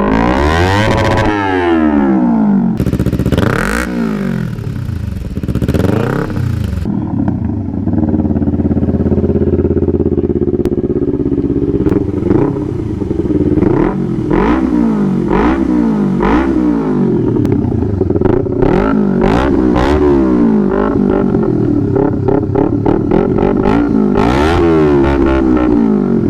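Kawasaki Ninja 250 parallel-twin engine running through a newly fitted aftermarket muffler, blipped again and again so the revs rise and fall, with short quick blips coming close together in the second half.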